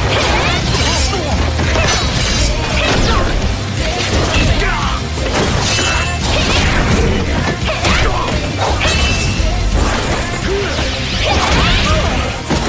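Anime battle soundtrack: loud music mixed with a rapid run of weapon clashes, impacts and whooshes.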